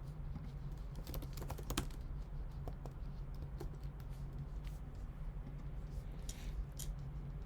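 Scattered clicks of a computer keyboard and mouse being typed on, in a few short runs, over a steady low hum.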